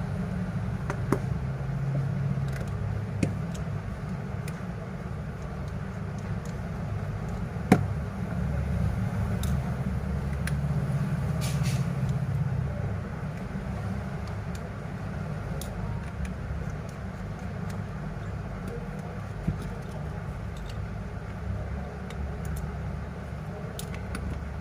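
Steady low rumble, with a few sharp clicks scattered through it, the loudest about eight seconds in.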